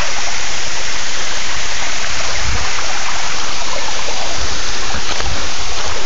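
Waterfall's falling water rushing steadily and loudly, close to the phone's microphone.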